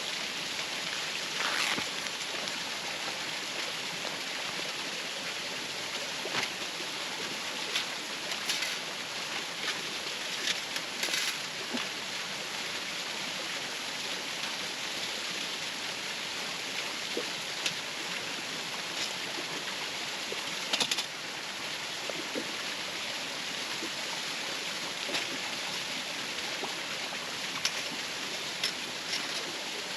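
Waterfall rushing steadily, with scattered small clicks and taps heard over it.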